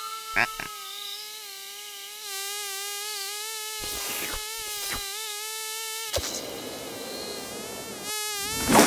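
Cartoon sound effect of a mosquito's steady high whine in flight, broken by a few short sudden sounds, with a loud sudden sound near the end.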